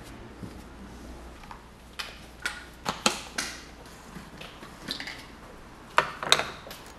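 A plastic water bottle being handled: a scatter of sharp clicks and knocks as its screw-on lid is twisted and the bottle is moved. The loudest are two close together near the end.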